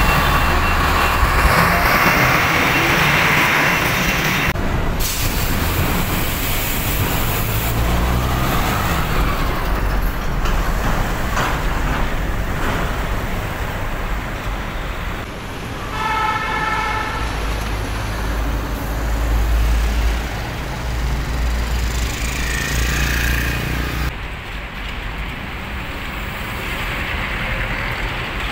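Busy road traffic: heavy diesel trucks, including a container truck, drive past with their engines running. About sixteen seconds in, a vehicle horn sounds briefly.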